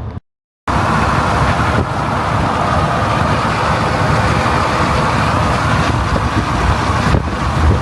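Loud, steady road and wind noise of a vehicle driving on the highway, cutting in suddenly about half a second in after a moment of silence.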